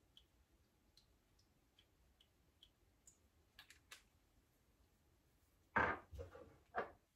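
Faint soft ticks, about two a second, as essential oil is dripped from a small dropper bottle into a saucepan. They are followed by a couple of sharper clicks and, near the end, three louder knocks of bottles and containers being handled and set down on the countertop.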